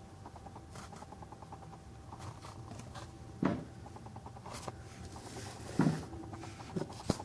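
Faint handling noises of a die-cast model excavator being turned in the hands: a few light clicks and taps, the clearest a little past the middle and near the end, over a faint steady hum.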